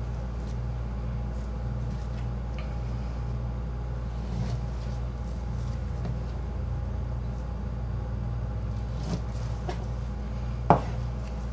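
Chef's knife slicing beef tenderloin into steaks, with light taps as the blade and the steaks meet a plastic cutting board and one sharper knock near the end. A steady low hum runs underneath.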